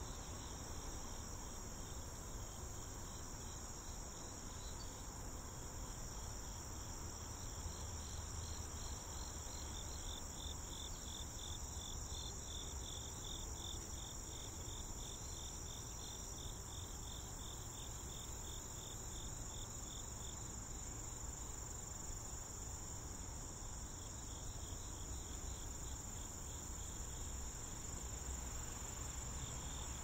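Crickets or other singing insects chirring: a steady high-pitched trill with a rhythmic pulsing chirp over it that swells in the middle and fades, above a faint low rumble.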